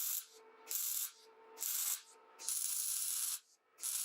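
The welded steel belt-tensioner parts of a homemade belt grinder being slid back and forth against each other, giving about five short scraping strokes of metal rubbing on metal.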